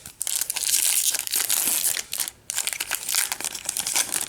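Wrapper of a 2017 Topps Series 1 baseball card pack crinkling loudly as it is torn open and handled, in two spells with a short break a little over two seconds in.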